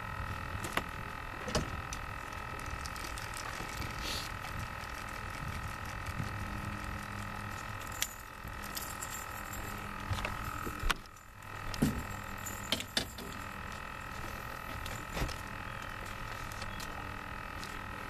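Steady hum of a small electric motor with several high steady tones, under scattered sharp clicks and knocks as a bass is worked off a lure's treble hooks.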